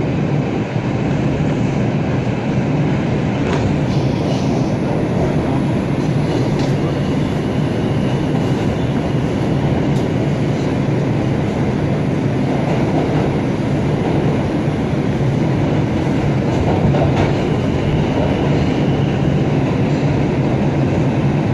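New York City subway 4 train heard from inside a car as it pulls out of a station and runs into the tunnel: a steady rumble of wheels on rail, with a few sharp clicks.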